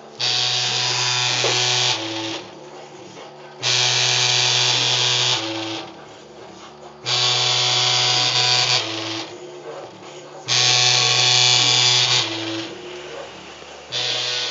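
Music with a loud buzzing, distorted sound over a low held note that comes in four times, each for about two seconds, about every three and a half seconds, with shifting pitched notes underneath.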